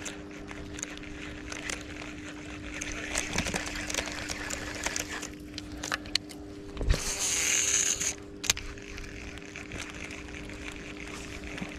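A baitcasting reel cast: about seven seconds in, a dull thump is followed by the spool whirring for about a second as the line pays out, and the whirring stops suddenly. Under it runs the steady rush of flowing river water, with small clicks from the reel being handled.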